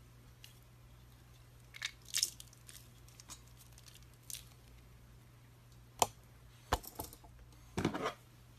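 Slime being squeezed and handled, giving short squishy crackles: a cluster about two seconds in, sharp ones about six and seven seconds in, and a longer squelch near the end. A faint steady hum runs underneath.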